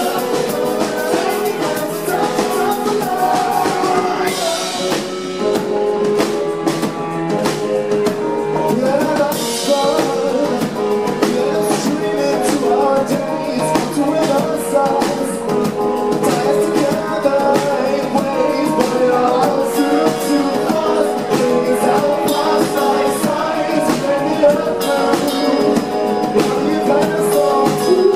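A rock band playing a song live: drum kit, electric guitar and keyboard with singing.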